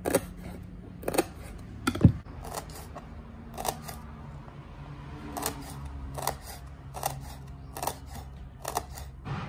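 Kitchen knife chopping green herbs on a wooden cutting board: sharp knocks of the blade on the board, roughly one a second, some in quick pairs, over a faint steady low hum.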